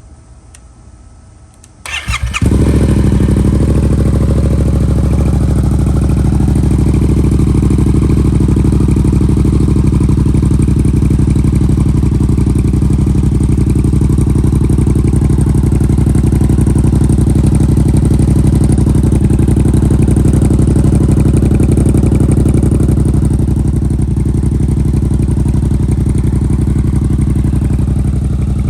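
2018 Yamaha MT-07's parallel-twin engine started about two seconds in, catching at once, then idling steadily through a full aftermarket exhaust run open with the baffle removed.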